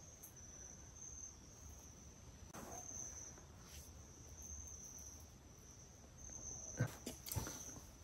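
Faint, steady high-pitched chirring of crickets, with a couple of soft clicks near the end.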